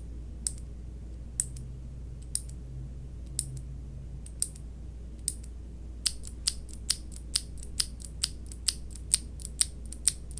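A Cherry MX mechanical keyboard switch pressed over and over, each keystroke a sharp click: about one a second at first, quickening to about two a second some six seconds in.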